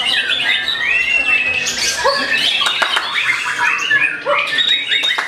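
White-rumped shama (murai batu) singing: a continuous, fast run of varied whistles, gliding notes and harsh chattering calls, with other songbirds mixed in.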